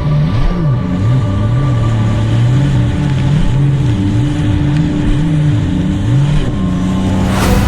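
Sea-Doo 300 personal watercraft engine, a supercharged three-cylinder, running hard with its revs rising and falling again and again about once a second, as when the jet ski skips over waves. A brief rush of noise near the end.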